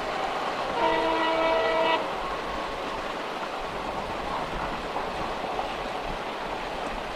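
Passenger train running, a steady noise of the moving train, with one horn blast of about a second, a chord of several steady notes, about a second in.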